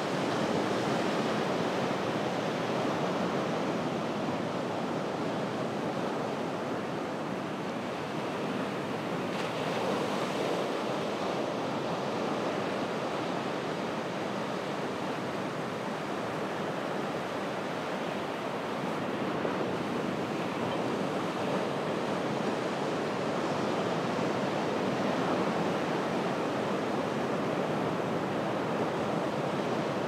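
Ocean surf washing onto a beach at low tide: a steady rush of breaking waves that swells slightly louder now and then.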